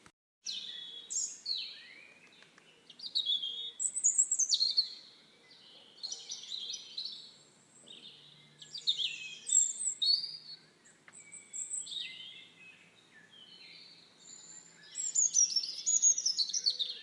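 Songbirds chirping and singing in a string of quick, high-pitched phrases that come in bursts every second or two. The audio cuts out for a moment right at the start.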